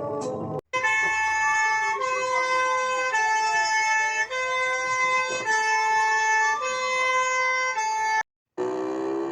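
Emergency-vehicle siren: a two-tone hi-lo siren switching pitch about once a second, overlaid by a wail that glides slowly up and down. It cuts off shortly before the end, and a different siren starts rising.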